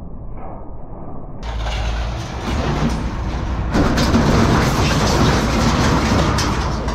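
A heavy engine running with a steady low rumble, joined by clattering metal and knocks. The sound opens up and gets louder about a second and a half in, and louder again near the middle.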